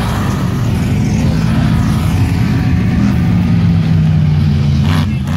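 Engine of a Polaris RZR side-by-side running as it speeds past close by and pulls away, a steady drone that sits slightly lower in pitch from about three seconds in.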